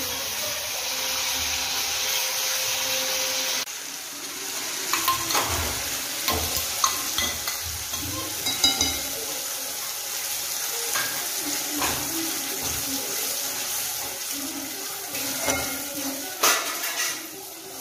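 Masala paste frying in oil in a metal kadhai, sizzling steadily while a metal spatula stirs and scrapes it, with irregular clicks and knocks of the spatula against the pan.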